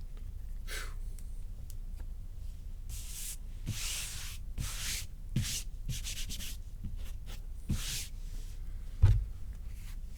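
Trading cards being slid against one another and flipped through by hand, heard as a string of short dry swishes. There is a soft thump near the end.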